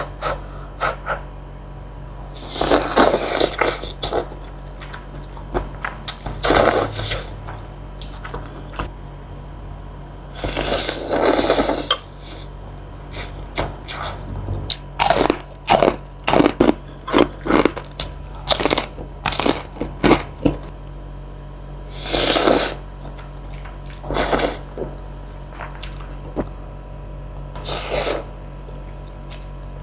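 Close-miked eating sounds of spicy Indomie instant noodles: several noisy mouthfuls about a second long, with a run of quick, clicky chewing and crunching bites in the middle stretch.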